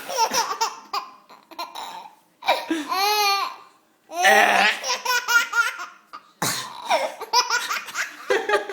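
A baby laughing hysterically in high-pitched squealing bursts, set off by rough burp sounds made for him in between.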